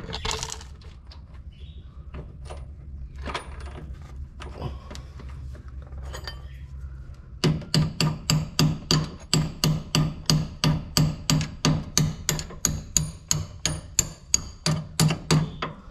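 Light clicks of metal suspension parts being handled, then, about halfway through, a fast, even run of hammer knocks, about three or four a second, that stops just before the end.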